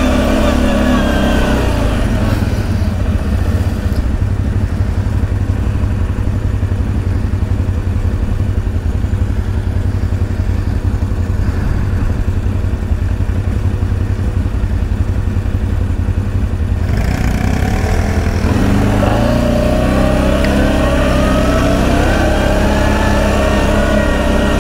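ATV engine running under load on a trail, most likely the rider's own CFMoto X8 V-twin. Its revs rise and fall at the start, settle into lower, steadier running, then rise and fall again from about two-thirds of the way in, over a continuous low rumble.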